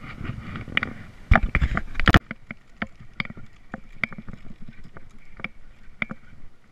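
Close handling noise from fishing gear held right at the microphone: rustling and several loud knocks in the first two seconds, which stop abruptly, then a run of light, irregular clicks from the baitcasting reel and rod being handled.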